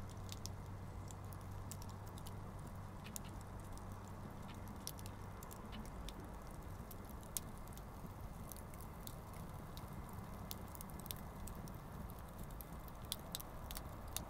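Wood campfire crackling: irregular sharp pops and snaps over the low rumble of burning flames, with a few louder pops, the loudest about seven seconds in.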